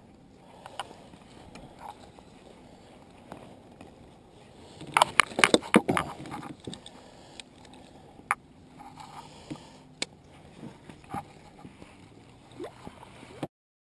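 Sharp plastic clicks and knocks of a fish lip-gripper being pulled from its holder and handled against a plastic kayak. The clicks come in a quick cluster about five seconds in, then as scattered single clicks, and the sound cuts off suddenly near the end.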